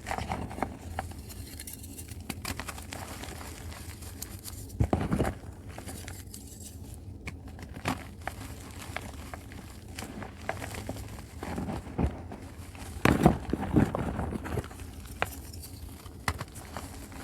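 Dusty reformed chalk crunching and crumbling, in irregular crisp crackles and snaps, with louder bursts of crunching about five seconds in and again around thirteen to fourteen seconds in.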